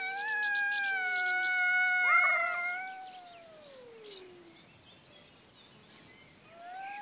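Two tabby cats yowling at each other in a fight standoff. A long, drawn-out howl slides down in pitch and dies away about four and a half seconds in, with a second short yowl over it about two seconds in, and a new howl rises near the end.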